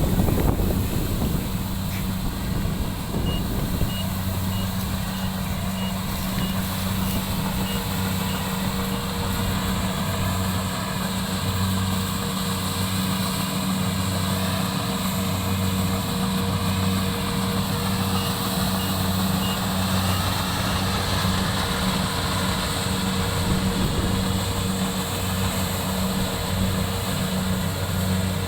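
Combine harvester running steadily while harvesting rice: a continuous engine and machinery hum with a low, slightly pulsing drone.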